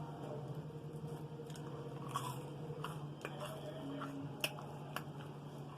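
A person chewing and biting food close to the microphone: scattered soft crunches and small mouth clicks over a steady low hum.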